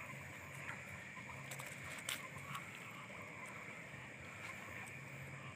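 Faint, steady chirring of night insects in a wet field, with a few soft clicks and rustles of hands working at the mud.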